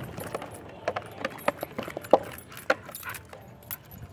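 Irregular metallic jingling clicks with soft thumps, about two a second, like metal tags or keys shaking with movement and footfalls on dirt.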